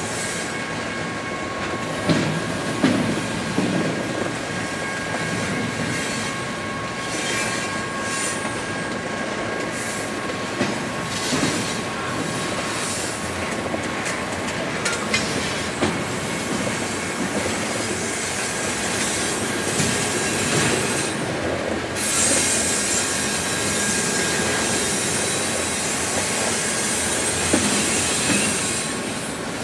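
Double-stack intermodal freight train rolling slowly through a rail yard: a steady high wheel squeal over the rumble and clatter of the cars, with occasional sharp clanks. The squeal fades about two-thirds of the way through.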